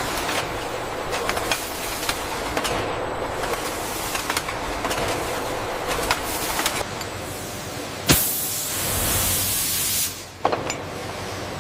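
Factory machinery running with scattered clicks and knocks. About eight seconds in, a sharp clank is followed by a loud hiss lasting about two seconds.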